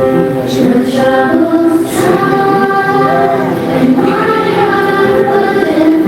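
Choir singing a hymn in several voices at once, with long held notes.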